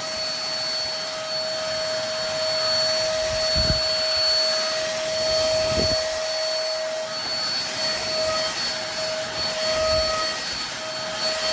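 Tower VL25 stick vacuum cleaner running steadily, picking up dog hair with its brush nozzle: a high motor whine over the rush of air, with a couple of brief low thuds.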